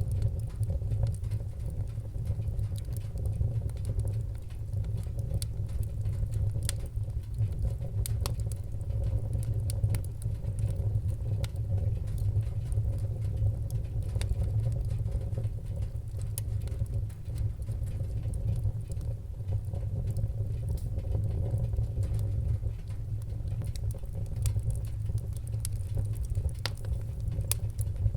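Wood-burning fire crackling, with scattered sharp pops and snaps over a steady low rumble.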